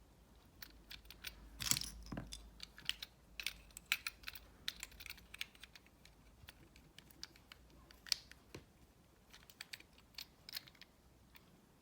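Plastic puzzle-cube pieces being handled and fitted together, a scatter of small irregular clicks and taps.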